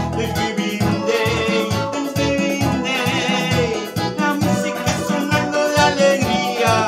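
Instrumental merengue played on a Yamaha electronic keyboard: a steady, regular bass beat about twice a second under a keyboard melody.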